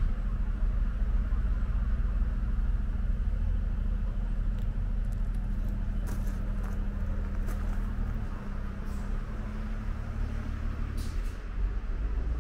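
Steady low rumble of motor-vehicle traffic, with a few faint ticks.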